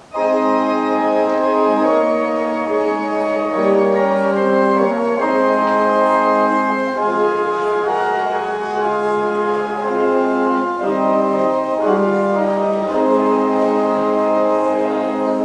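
Organ playing slow, held chords that change every second or so. The music starts and cuts off abruptly.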